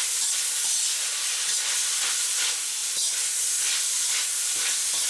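Pork, onions and chili sizzling in hot oil in a wok while being stirred and tossed, a steady loud frying hiss with faint scrapes of the utensil every so often.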